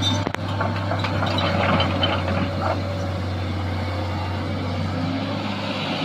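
Sany SY215C hydraulic excavator's diesel engine running steadily under load while it digs and loads fill material.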